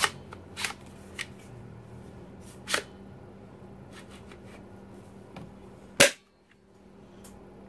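Sharp plastic clicks and knocks from a plastic toy M203-style grenade launcher being handled, a few spread out, with the loudest snap about six seconds in.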